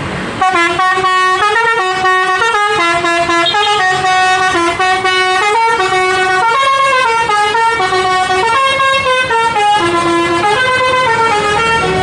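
Bus telolet horn, a Basuri multi-tone air horn, playing a long melody of held notes stepping up and down. It starts sharply about half a second in.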